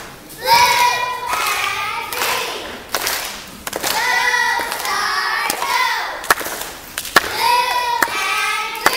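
A girl's voice in drawn-out wordless tones, each held for about a second and repeated several times. Between them come a few sharp knocks of footsteps on concrete steps.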